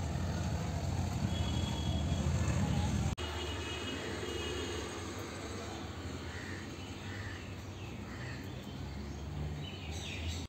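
Background ambient noise: a steady low rumble that gives way about three seconds in to a quieter hiss, with a few faint, short high chirps.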